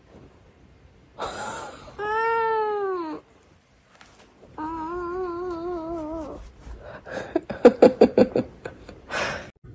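Domestic cat yowling in a string of drawn-out meows: an arched meow just over a second long, then a longer wavering one of almost two seconds. Near the end comes a quick run of short sounds.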